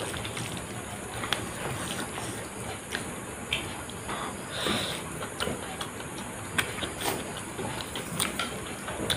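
Close-up eating sounds: a person chewing mouthfuls of omelette and rice eaten by hand, with scattered sharp mouth clicks over a steady background hiss.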